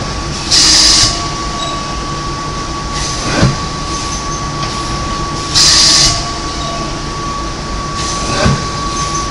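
Paper pulp egg tray forming machine running: a steady mechanical drone with a constant whine. Twice, a sharp hiss of air lasting about half a second is followed a few seconds later by a single clunk, as the forming and transfer cycle repeats about every five seconds.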